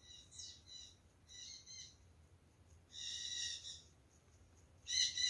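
A bird calling in short, high-pitched calls, four in a row, the third the longest and the last, near the end, the loudest.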